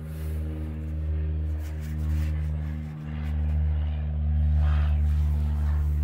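Slow ambient background music: a sustained low drone under held chords that change twice, with soft swells in the middle range.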